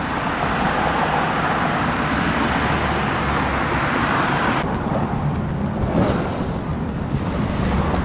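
Steady road traffic noise of passing cars and vehicles, changing in character a little past halfway.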